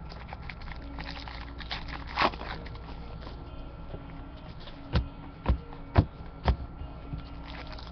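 Trading cards being handled and set down one by one onto a pile on a table: a brief rustle, then four light taps about half a second apart, over a steady low hum.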